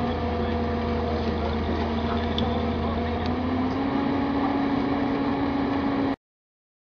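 Engine running steadily, its pitch rising a little about three seconds in as it takes on more throttle; the sound cuts off abruptly near the end.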